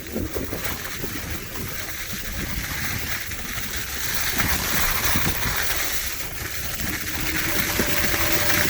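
Wind rushing over the microphone with road rumble while a Kaabo Wolf Warrior X GT electric scooter is ridden. A steady high tone joins in near the end.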